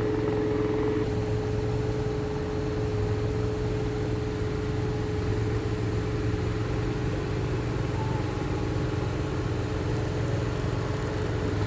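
Engine of a mango-picking machine running steadily: a constant drone with a steady hum over it.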